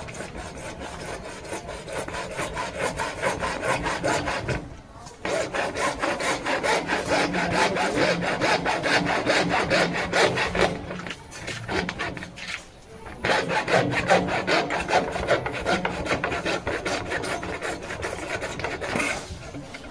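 Rapid rasping back-and-forth strokes of a hand tool cutting or shaping PVC SWR drain pipe, in long runs with three short breaks, about five, eleven and thirteen seconds in.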